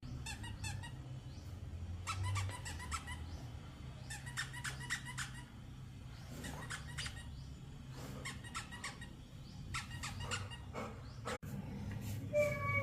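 Short runs of rapid high squeaks, about six bursts a second or two apart, over a low steady hum. Near the end a loud whine starts and slides downward in pitch.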